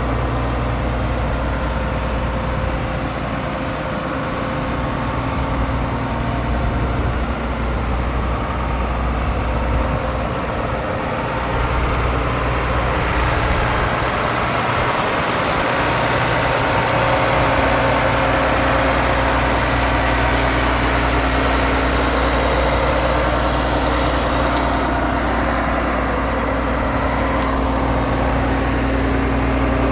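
Cummins 5.9-litre six-cylinder diesel engine of a Blaw-Knox PF-4410 asphalt paver running steadily at idle, growing slightly louder about twelve seconds in.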